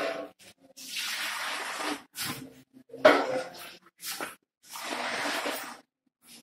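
Cloth rustling: two long swishes of fabric as a drape and clothing are pulled and moved, with short snatches of voice between them.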